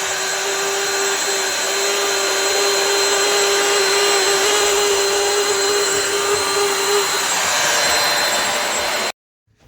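Bissell CrossWave wet-dry floor washer running: a steady loud suction motor with a whine that drops away about seven seconds in. It cuts off suddenly near the end.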